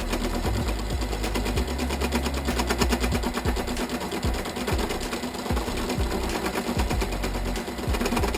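Small metal lathe running, its motor and gear train giving a steady whir with a fast, even rattle.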